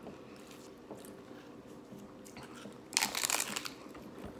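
A bite into a crispy hard-shell taco: a short burst of loud crunching about three seconds in, followed by a few smaller crunches of chewing.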